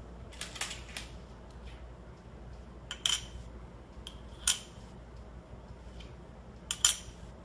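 Metal coins clinking onto the red plastic dish of a No-Face coin-bank toy: a few quick clinks near the start, single ones at about three and four and a half seconds, and the loudest pair near the end.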